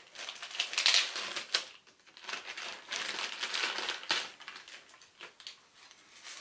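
Clear plastic packaging bag crinkling and rustling in quick bursts as it is torn open and a small card case is pulled out. The rustling is loudest over the first few seconds and thins out near the end.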